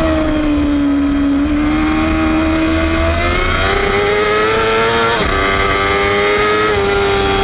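Kawasaki racing motorcycle's inline-four engine heard from the bike itself: the pitch sinks through a corner, then climbs as the throttle opens, with a sudden drop at an upshift about five seconds in and another near the end.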